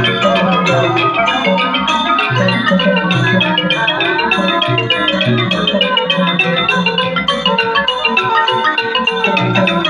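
Thai piphat mon ensemble playing, a wooden ranat xylophone struck in fast, even runs with two mallets to the fore, over gong circles and a steady pulse of low drum beats. The xylophone is miked and amplified.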